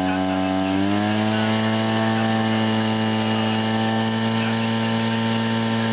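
Petrol engine of a portable fire pump running at high speed, revving up about a second in and then holding a steady pitch as it pumps water into the hose lines.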